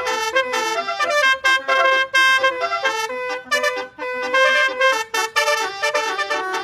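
Basuri telolet multi-tone horn playing a quick melody of short honked notes, several horn tones sounding together and changing pitch every fraction of a second.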